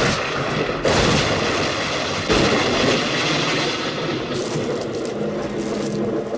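Loud booming crashes, one about a second in and another about two and a half seconds in, over a continuous rumbling roar.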